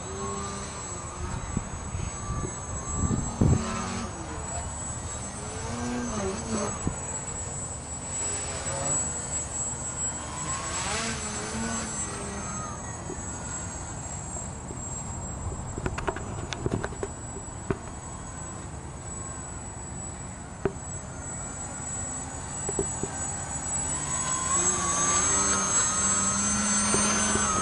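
Small RC plane's brushless electric motor (Scorpion SII-2208-1100KV) and APC 9×4.7 propeller buzzing overhead, its pitch rising and falling as the throttle and passes change. In the last few seconds it grows louder and higher as the plane comes down close and hangs nose-up in a hover.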